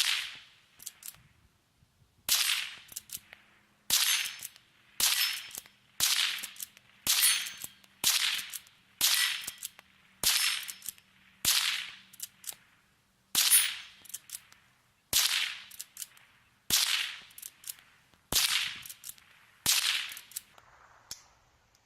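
Henry lever-action .22 LR rifle firing a string of about fifteen shots, roughly one a second with a couple of short pauses, each crack trailing off in a brief echo. It is shooting American Eagle .22 ammunition.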